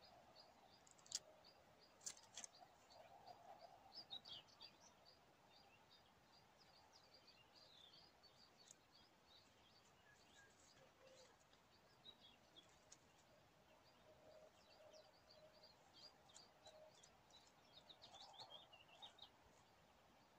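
Faint birdsong: many quick, high chirps from small birds, with a couple of sharp clicks about one and two seconds in.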